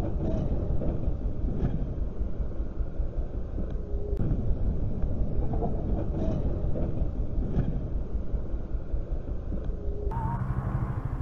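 Wind rumbling on the microphone of a moving motorcycle, with the engine running underneath. About ten seconds in the sound cuts to a different recording with a steadier engine hum.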